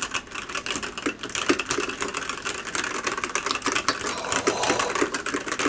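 Fast, continuous typing on a Ducky x Varmilo Miya Pro Sakura 65% mechanical keyboard with Varmilo Sakura 45 g linear switches, many keystrokes a second.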